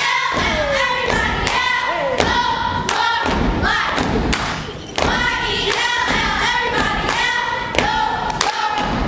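A group of children's voices chanting in unison over a steady beat of foot stomps on a wooden stage floor and hand claps, about two beats a second.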